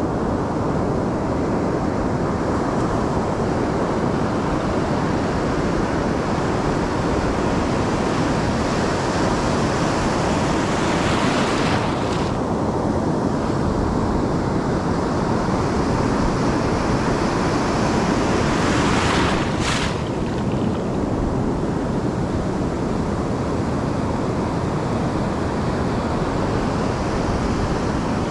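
Ocean surf washing on a beach, with wind buffeting the microphone. Two louder rushes, about eleven and nineteen seconds in, each cut off suddenly.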